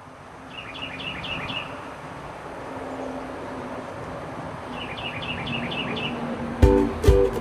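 A steady background hiss fades in, and a bird calls twice, each call a quick run of about five chirps. Near the end, ukulele music with a strong beat begins.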